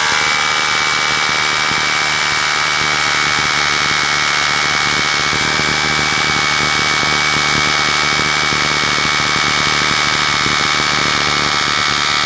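Bosch GBH 200 hammer drill running steadily under load, its masonry bit boring quickly into a stone slab.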